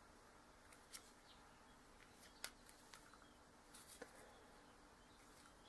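Near silence, with a few faint, short clicks of hands handling a red plastic XT150 connector housing and its gold bullet contact.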